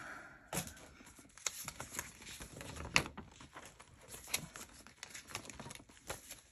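Frosted plastic cash envelopes and binder pages being handled: a light crinkling rustle with scattered clicks and taps, the sharpest about three seconds in.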